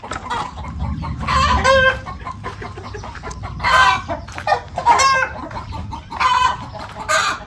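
Chickens cackling loudly, a run of about five sharp, high calls a second or so apart.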